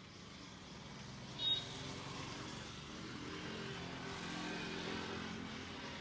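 A motor vehicle passes on the road, its engine hum growing louder over a few seconds and peaking near the end. A short high-pitched chirp comes about a second and a half in.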